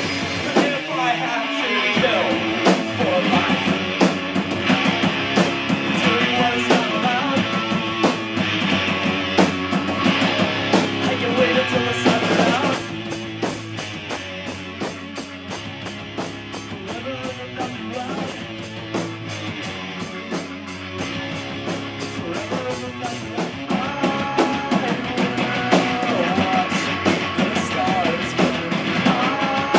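Rock music played on electric guitar and drum kit. About halfway through it drops to a quieter passage with an even, rapid ticking, about four strokes a second, then builds back up.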